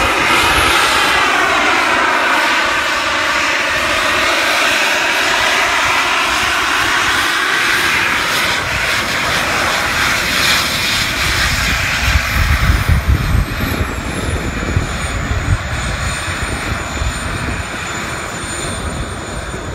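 Small jet turbines of a jet-powered flying hoverboard running loud, their whine rising and falling as it hovers and comes in to land. About thirteen seconds in, a high whine drops in pitch and then holds steady, with a gusty low rumble underneath.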